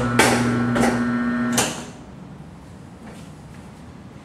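Corghi A9220 tyre changer's turntable motor running with a steady hum while the tyre's bead is worked over the mounting head, with a couple of sharp knocks, stopping after about a second and a half as the bead finishes going on.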